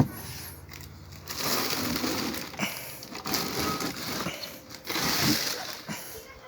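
Packaging being handled: a sharp click, then three stretches of loud rustling and crinkling.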